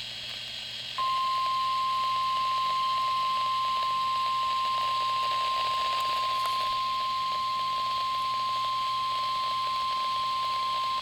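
NOAA Weather Radio's 1050 Hz warning alarm tone: one steady high beep that starts about a second in and holds for about ten seconds, over radio hiss. The tone signals that a warning, here a severe thunderstorm warning, is about to be read.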